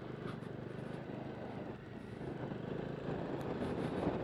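Bajaj Dominar 250's single-cylinder engine running as the motorcycle is ridden over a rough dirt track, getting a little louder near the end.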